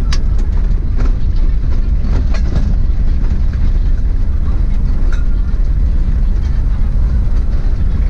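A 4x4 driving on a rough unpaved track: a steady low rumble with scattered knocks and rattles, a few just after the start, around two to two and a half seconds in, and again about five seconds in.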